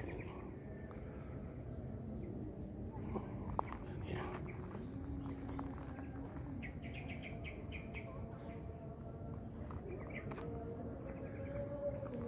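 Crickets chirping in a steady high drone. About seven seconds in, a bird gives a quick run of short repeated notes.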